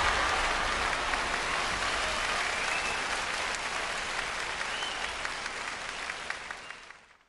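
Concert audience applauding, slowly dying down and then fading out near the end.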